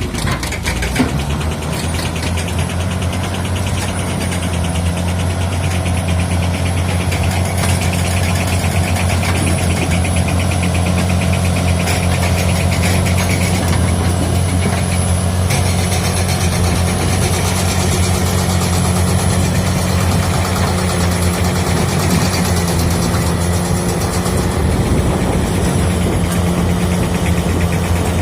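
Heavy earthmoving machine's diesel engine running steadily under work, a deep even drone, with a few sharp knocks in the first second or so.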